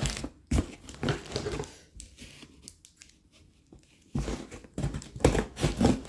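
Cardboard box and its plastic packing tape being torn open by hand, in rough bursts of tearing and crinkling, with a short lull in the middle before the tearing starts again.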